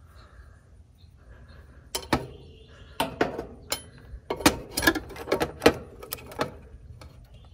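A quick, irregular run of sharp clicks and knocks, starting about two seconds in and lasting about four seconds, as a replacement dual run capacitor and its wire connectors are handled and fitted inside the metal control compartment of an air-conditioner condenser unit.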